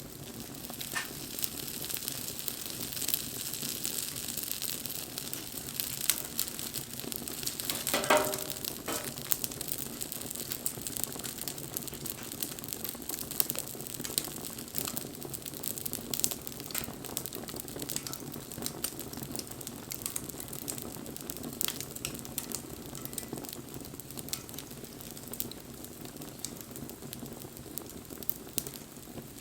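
Wood fire burning, with a steady hiss and frequent sharp crackles and pops. A brief pitched squeal comes about eight seconds in.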